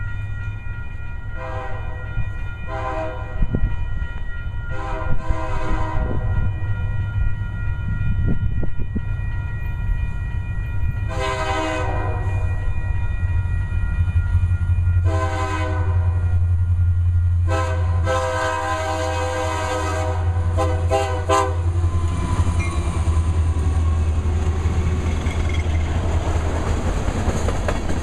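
Approaching diesel freight locomotives, a Union Pacific SD70M and a CSX C40-8W, blowing a multi-tone air horn for a grade crossing over a steady low engine rumble: short blasts early, longer blasts near the middle, then quick short toots about three-quarters through. In the last few seconds the locomotives pass and the steel wheels of loaded tank cars clatter on the rails, growing louder.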